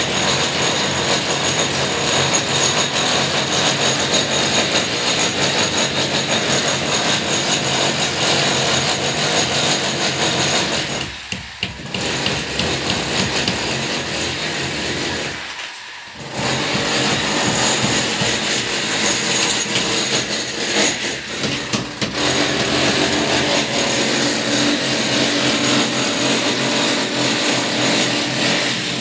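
Handheld electric power tool running hard in long stretches, with a steady high whine over a dense grinding-rattling noise; it stops briefly twice, about a third and about halfway through.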